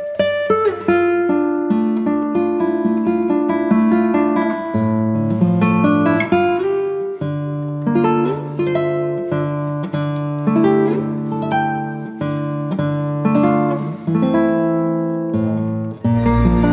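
Background music: an acoustic guitar playing a run of plucked notes, with a fuller, steadier accompaniment coming in near the end.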